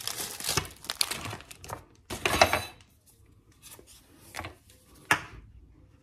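Thin plastic packaging crinkling and rustling as a block of wonton wrappers is pulled out of it. There is a louder crackle of the plastic a little after two seconds in, then only a few light ticks and taps.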